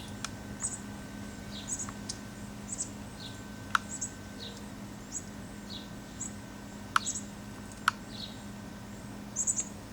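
A small songbird giving short, high chirps over and over, about one a second, a female's constant chirping while the male feeds her. Three sharp clicks stand out louder, and a steady low hum runs underneath.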